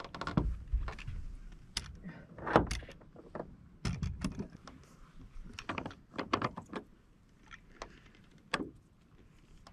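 Irregular knocks, thumps and rustles of a large carp flopping and being handled in a boat, thinning out over the last few seconds.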